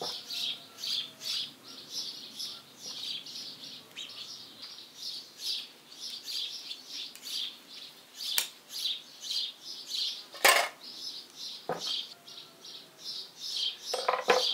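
Steel hand tools clinking against the cast-iron body of a tractor hydraulic control valve being taken apart: a few sharp metallic clinks, the loudest about ten seconds in. A high chirping repeats a few times a second under it.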